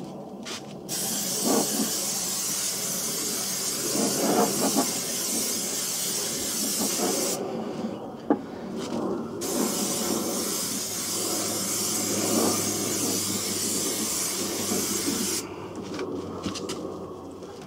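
Aerosol spray paint can spraying enamel paint: a hiss in two long sprays of about six seconds each, with a short break and a few brief puffs between them and near the end.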